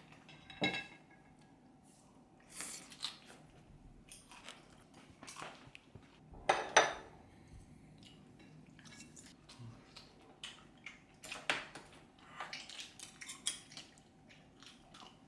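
Dishes and metal cutlery clinking on a meal table: scattered light clicks and taps, with a few louder ringing clinks, the loudest about six and a half seconds in.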